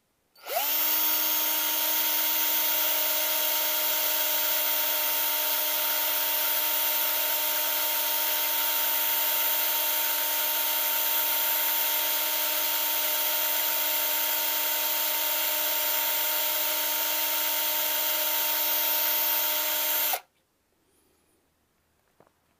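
Cordless drill running steadily with a 5 mm glass drill bit grinding into a glass test tube. It spins up about half a second in and stops suddenly about 20 seconds in.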